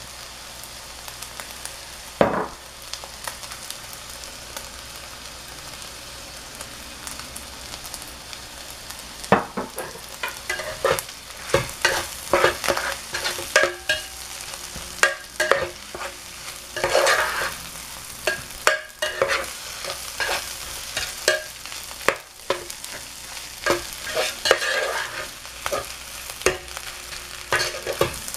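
Fried rice sizzling in an electric skillet, with a single knock about two seconds in. From about nine seconds on, a metal spatula scrapes and clacks against the pan again and again as the rice is stirred and turned.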